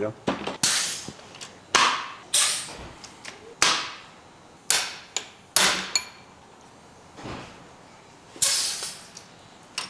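Hammer blows on a valve spring compressor over the valves of a Willys 134 F-head engine block, knocking loose tight, varnish-gummed valve spring keepers. There are about seven sharp metallic strikes at uneven intervals, each with a short ring, with a pause of nearly three seconds before the last.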